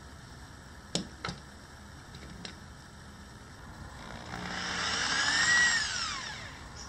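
Electric drill boring a hole through a small wooden block: the motor spins up, runs for about two seconds and winds down, its pitch rising and then falling. Two sharp knocks come about a second in, before the drilling.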